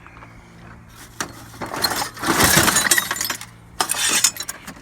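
Loose scrap and junk clattering and crashing as it is dumped, with a long loud crash about two to three and a half seconds in and a shorter one near four seconds.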